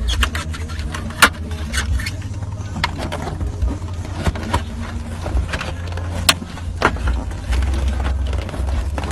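Plastic clicks and knocks as a BMW F10 rear centre-console air vent grille is handled and pressed into place in the console, the sharpest clicks about a second in and again around six seconds in, over a steady low hum.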